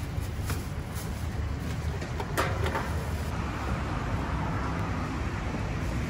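Steady low rumble of road traffic, with a few sharp clicks and rustles of plastic bags being handled, the strongest about two and a half seconds in.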